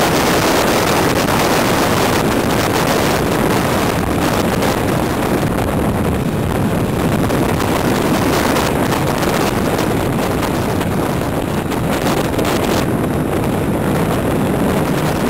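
Heavy, steady wind rush on the microphone of a camera riding on a moving motorcycle, with the motorcycle's engine and road noise underneath.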